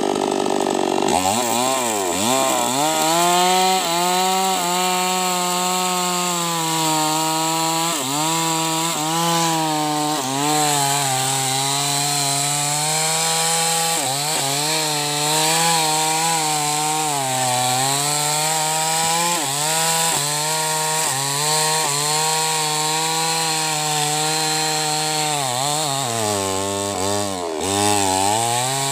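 New West 588X two-stroke chainsaw revving up about a second in and cutting through a large sengon log at full throttle. The engine note repeatedly sags as the chain bites into the wood and picks back up as the load eases.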